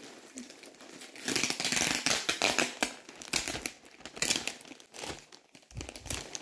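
Thin clear plastic packaging bag crinkling as hands handle it, in uneven spurts, loudest from about a second in for a couple of seconds.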